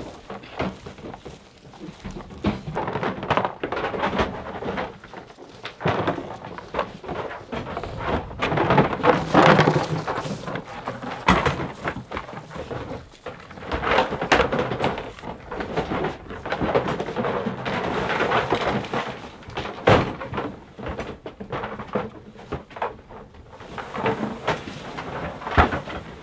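Goose decoys being shifted and pulled out inside an enclosed cargo trailer: irregular thunks and clatter with rustling.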